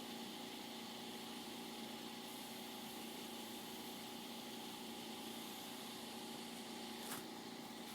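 Steady hiss with a low hum from a police scanner between radio transmissions, with one short click about seven seconds in.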